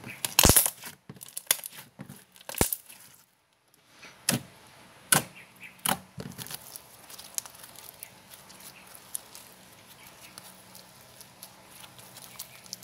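Thick slime with small beads mixed in, pressed and stretched by hand: sharp sticky pops and clicks as it pulls apart, loudest in the first six seconds, then a run of small crackles.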